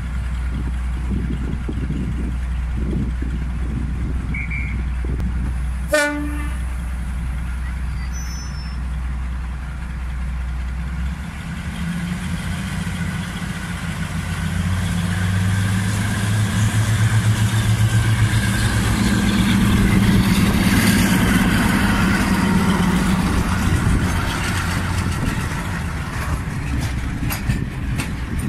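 Class 42 Warship diesel-hydraulic locomotive idling with a steady low rumble. It gives a short horn toot about six seconds in. Its engines open up at about eleven seconds and run louder as the train departs, and near the end the carriages clatter over the rail joints.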